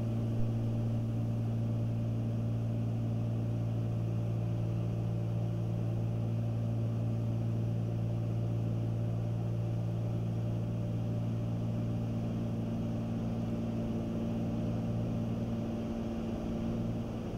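Cabin drone of a Cessna 310Q's twin piston engines and propellers in flight: a steady, even hum with a low tone.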